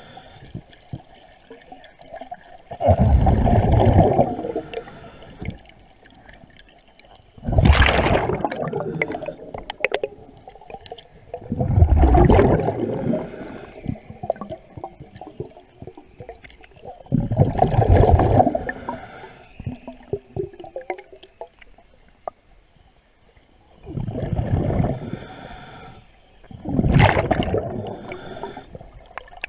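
A diver's breathing regulator underwater: six bursts of exhaled bubbles gurgling past, about every four to five seconds in a steady breathing rhythm.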